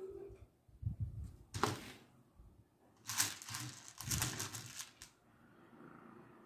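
Small beads clicking and rattling against each other as a beaded crown is handled and stitched with a needle and line, in three short bursts.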